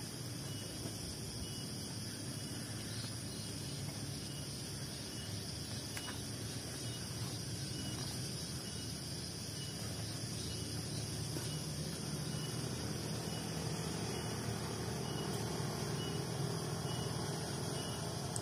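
Steady outdoor ambience of chirring insects, with a faint repeated high chirp. A low rumble underneath grows slightly louder in the second half.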